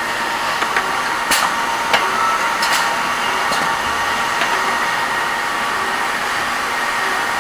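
Reaming and tapping machine running with a steady whir and a faint high hum, with a few sharp clicks in the first three seconds.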